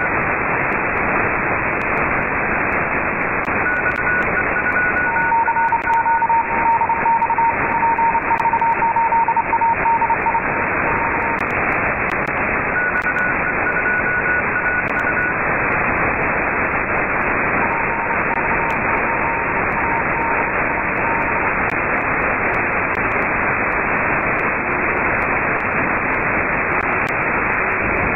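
Upper-sideband radio receiver hiss from an RTL-SDR software radio fed from a Kenwood TS-2000's IF, band-limited and hollow, with steady whistle tones from carriers on the band. A higher whistle and a lower one come and go, each lasting a few seconds.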